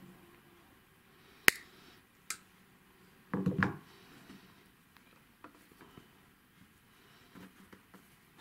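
Side cutters snipping through nylon fishing line: one sharp click about a second and a half in, then a lighter click and a short knocking clatter a little later, with a few faint ticks of line handling.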